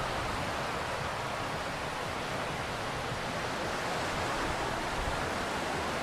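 Steady wash of ocean surf on a sandy beach, an even rushing noise without a break.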